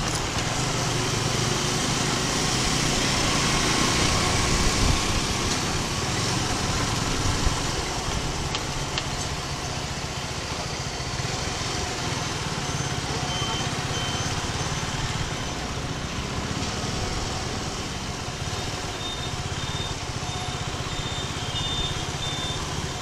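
Suzuki Gixxer 250 motorcycle on the move: wind rushing over the microphone with the single-cylinder engine running underneath, easing off about eight seconds in as the bike slows.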